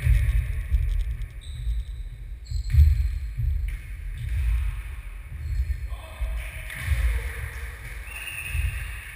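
A football being kicked and bouncing on a wooden sports-hall floor: a few dull thuds, the loudest about three seconds in, over a steady low rumble.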